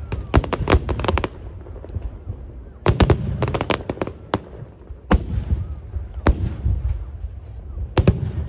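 Aerial fireworks shells bursting high overhead: sharp bangs with a low rumble between them. There is a rapid cluster of bangs in the first second or so, another cluster about three seconds in, then single bangs spaced a second or so apart.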